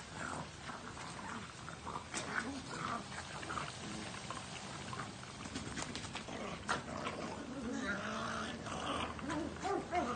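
Two pugs play-fighting over a toy, with short growls and snorty grunts, over the steady sizzle of chicken deep-frying in oil.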